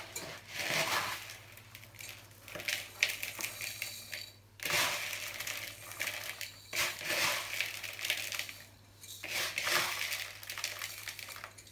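Crisp fried om podi (fine gram-flour sev) rustling and crackling as it is scooped by hand from a plastic bowl and poured into a glass clip-top jar, in about five separate bursts with short pauses between.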